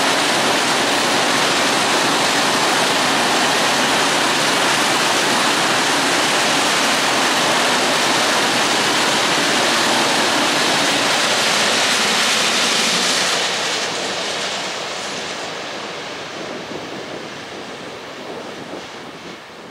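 Freight train of covered hopper wagons rolling past: a steady rush of wheel-on-rail noise that starts fading about thirteen seconds in as the last wagons go by, and dies away toward the end.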